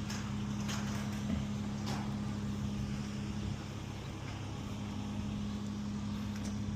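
A steady low mechanical hum with one constant droning tone, and a few faint clicks in the first two seconds.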